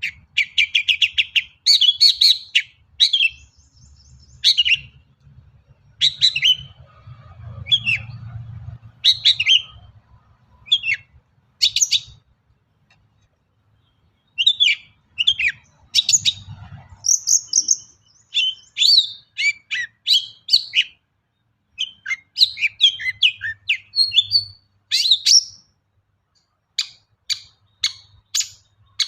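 Long-tailed shrike (cendet) singing a fast string of short, sharp chirps and rattling trills, strung together with calls it mimics from other birds. There is a pause of about two seconds near the middle.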